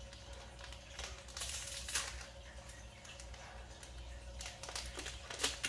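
A foil trading-card booster pack being torn open and the cards worked out of it: soft crinkling of the wrapper with scattered small clicks, busiest about a second and a half in and again near the end.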